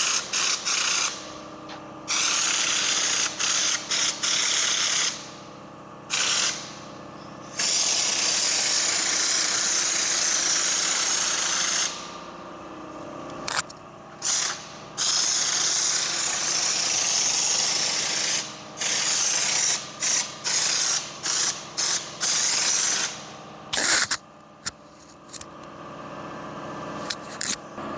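Compressed-air coating gun spraying textured bedliner paint (U-POL Raptor type), a loud hiss that starts and stops as the trigger is pulled and released. Mostly short bursts, with one longer run of about four seconds and a quick string of short bursts later on.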